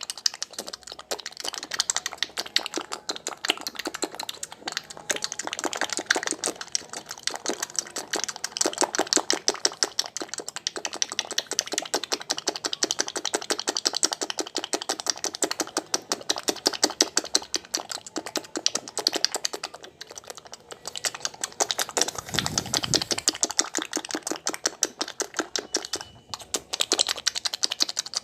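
Rapid, continuous wet smacking made with dry hands, saliva and puffed cheeks: a mouth-made imitation of the sound of masturbation. The smacks come many times a second, ease briefly about two-thirds of the way through and again near the end, with a single low thump in between.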